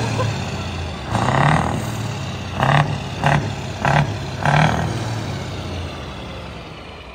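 Scania truck's diesel engine being revved in five short blips, each a quick rise and fall in pitch, between stretches of running. It then settles and dies away near the end.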